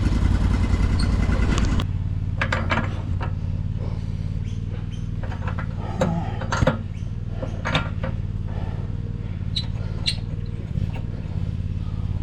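An engine running steadily, louder for the first couple of seconds and then dropping slightly, with scattered sharp knocks over it.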